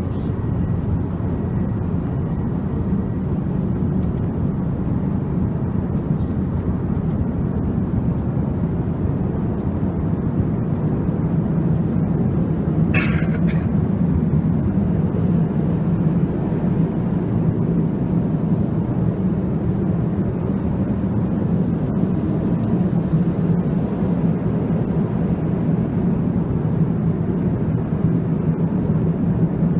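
Steady cabin noise of an Airbus A350-XWB airliner in flight: an even rushing roar of airflow and engines with a low drone underneath. A brief sharp noise cuts through it about halfway through.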